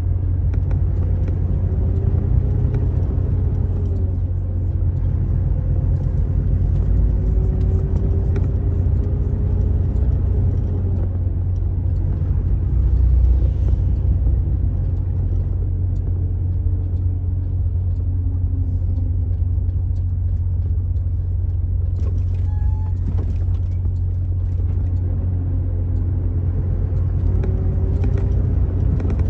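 Motor vehicle driving on a highway: a steady low rumble of engine and road noise, with the engine's tone rising and falling gently.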